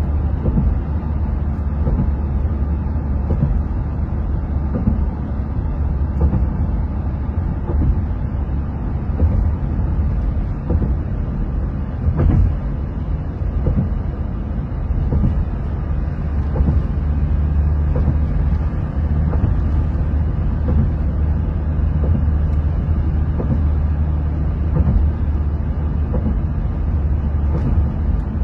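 Steady low rumble of a vehicle driving along a highway: engine and tyre road noise, with occasional small bumps and knocks.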